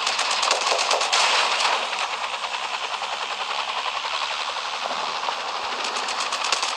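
Helicopter sound effect: a rapid, even chop of rotor blades over a steady rush. The chop blurs into a smoother rush for most of the middle and comes back crisply near the end.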